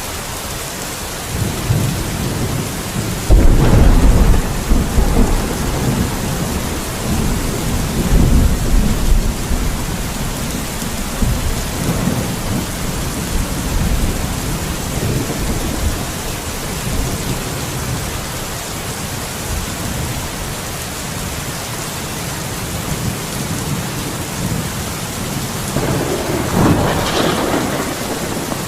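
Steady rain hissing with rolling thunder. A loud clap about three seconds in rumbles on for several seconds, weaker rumbles follow, and another roll of thunder comes near the end.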